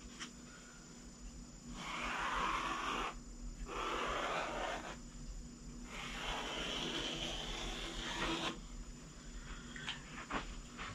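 Felt-tip Sharpie marker dragged along the edge of a sheet of 1-inch polyfoam, tracing around a wooden seat frame: a scratchy, squeaky rubbing in three long strokes, followed by a few light clicks near the end.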